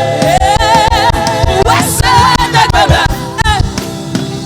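Gospel praise singing with a band: voices held with vibrato over a steady drum beat.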